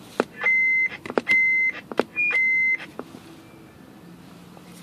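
Galaxy 55 HP CB radio's roger beep sounding three times: a steady high beep of about half a second, each set off by a sharp click of the microphone key. A brief higher blip comes just before the third beep. The beep has been set to a lengthened duration.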